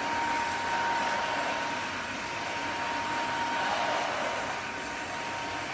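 Cordless wet-dry floor vacuum running in auto mode: a steady rush of suction with a constant high motor whine.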